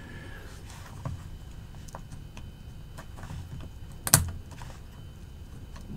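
Light clicks and taps of a steel folding knife and its small parts being handled, with one sharper click about four seconds in.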